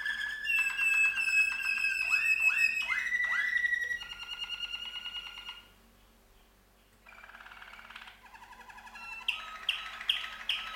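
Domestic canaries singing: long rolling trills and held whistled notes, with a run of four swooping notes about two seconds in. The song breaks off for about a second and a half just past the middle, then resumes with rolls and a few sharp chirps near the end.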